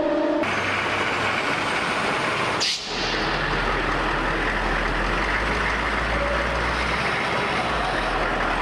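Military vehicle driving: steady engine and road noise, in clips cut together, with abrupt changes about half a second in and again near three seconds, after which a low engine rumble holds steady.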